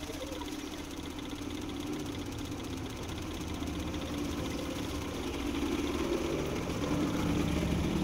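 A motor running steadily with a low hum, growing louder in the second half.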